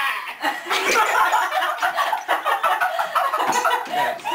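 Two teenage girls laughing hard together in quick, choppy bursts of giggles.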